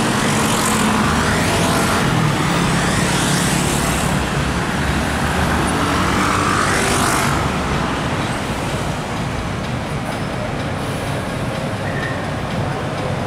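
Steady city road traffic: cars and buses running along a busy street, louder in the first half and easing slightly about seven seconds in.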